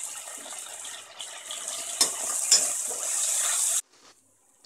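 Onions and spices frying in oil in a steel pressure cooker, sizzling steadily while a metal spatula stirs and scrapes the pot, with two sharp clinks of the spatula against the metal about two seconds in. The sizzle cuts off suddenly near the end.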